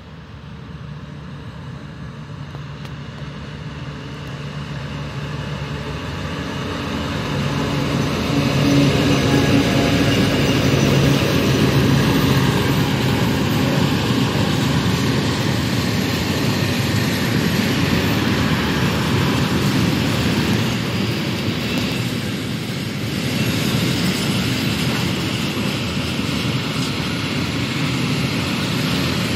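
Freight train passing close: the locomotive's engine grows louder as it approaches, then the tank wagons roll by with a steady rumble and clatter of wheels on rails.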